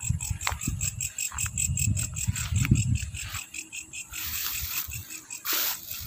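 Footsteps and rustling through grass with handling thumps on the microphone, while insects chirp in the grass with a fast, even, high pulsing rhythm. The thumping stops a little past halfway, leaving the insects, and a short rustle comes near the end.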